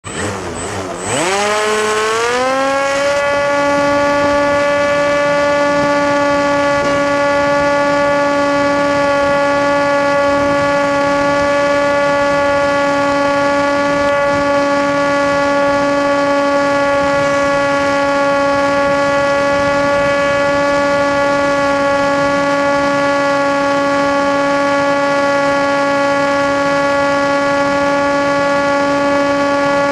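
Motor and propeller of an FPV model aircraft spooling up over the first two seconds, then holding a steady, high-pitched whine at constant throttle.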